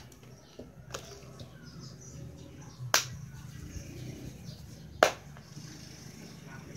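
Two sharp hand claps about two seconds apart, over a low steady hum.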